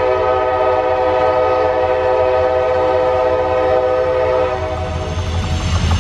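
CSX diesel locomotive's air horn sounding one long blast, a steady chord of several notes, held about four and a half seconds before tailing off, as a warning for the grade crossing ahead. The locomotive's diesel engine rumbles low underneath.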